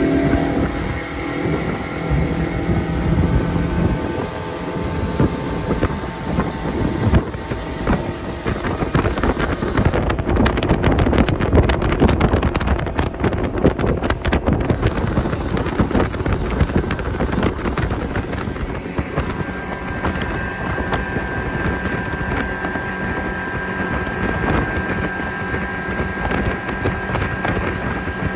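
Mercury 115 outboard running at speed and pushing an aluminium bass boat, with wind buffeting and rushing water throughout. The engine's pitch shifts over the first several seconds, then settles into a steady high whine for the last third.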